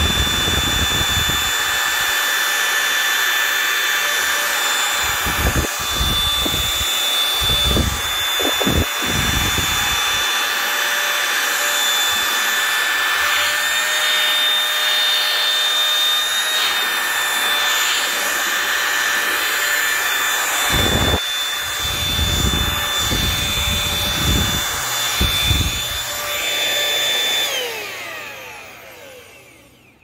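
Dirt Devil Power Stick Lite stick vacuum in handheld mode running, its small motor giving a steady rush of air with a high-pitched whine as the nozzle sucks up crumbs from a tabletop, with a few low thumps along the way. Near the end the motor is switched off and the whine slides down as it spins down.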